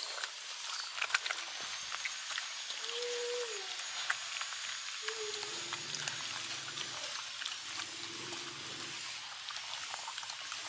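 Dogs eating cooked rice from a metal tray: scattered small clicks and smacks of chewing and licking, with a short whine about three seconds in and a low, drawn-out growl from about halfway through lasting some four seconds.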